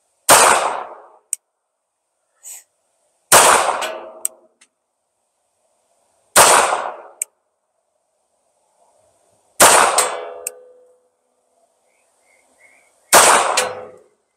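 Five single shots from a SIG P230 pistol in .380 ACP, fired slowly about three seconds apart. Each shot is followed about a second later by a short sharp tick.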